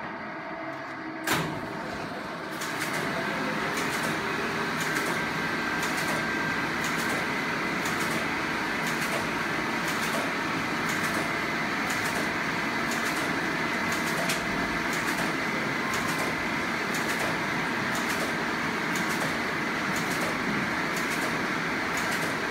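Rebuilt wartime Bombe code-breaking machine starting up and running: its electric motor drives the rows of drums round, cycling through Enigma rotor positions in search of a possible setting. A click about a second in, then a steady mechanical running noise with a regular clicking, a little under two a second.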